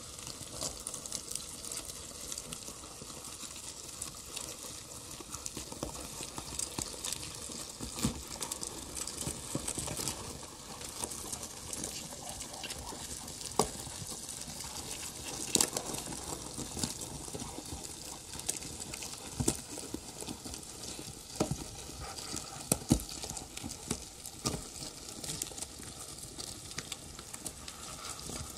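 Crackling, sizzling electronic noise from a live modular-synth and electronics rig: a dense hissing texture full of small clicks, with a few sharper, louder pops scattered through it.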